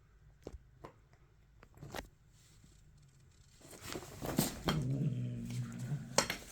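Domestic cat growling: one low, drawn-out growl lasting about a second and a half, after a few faint taps.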